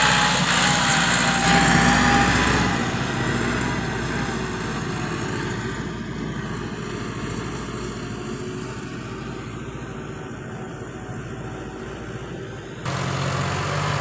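Farm tractor's diesel engine running loudly as the tractor passes close by, dropping after about three seconds to a fainter, more distant engine hum. Near the end the sound cuts abruptly to a louder, steady engine drone from a tractor pulling a sugarcane-loaded trolley.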